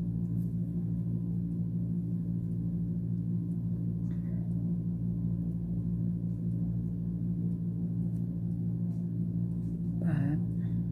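A steady low hum made of several constant tones, with a brief soft noise about ten seconds in.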